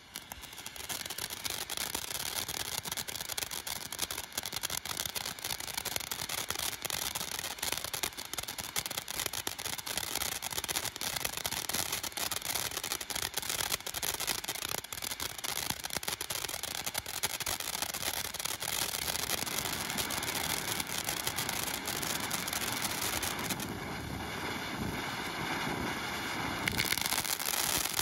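Phantom Fireworks Funky Monkey consumer firework fountain burning: it catches within the first second, then a steady spraying hiss thick with small crackles. Its sound changes for a few seconds near the end and then runs a little louder.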